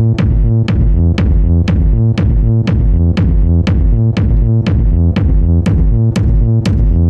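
Techno at 120 beats per minute from a drum machine and synthesizers: a sharp percussive hit about twice a second over a steady pulsing bassline, with no vocal sample.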